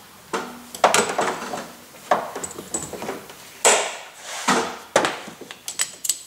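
Metal fittings of a vacuum coolant filler being coupled onto a radiator filler neck: a series of short knocks, clicks and rattles as the adapter, valve and hose are handled and pushed together.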